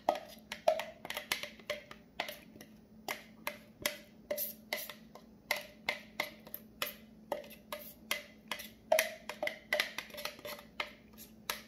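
A knife tapping and scraping inside a plastic container while thick cornbread batter is worked out into a metal muffin tin: irregular sharp clicks and knocks, two or three a second.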